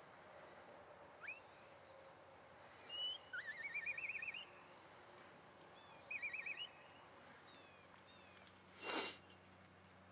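Short rising whistled chirps and two warbling whistled trills, the first one longer and climbing in pitch, the second short and level. A brief rush of noise near the end is the loudest moment.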